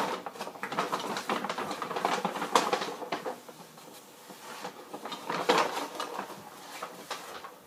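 Rustling and clicking of small objects being rummaged through and handled in a bag, in two bursts with a lull in the middle.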